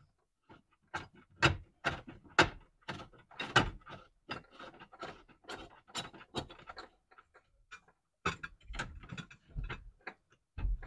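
Fuel tank lock ring being worked into place by hand over the fuel pump top hat: a run of irregular clicks and knocks, with a brief pause about seven seconds in.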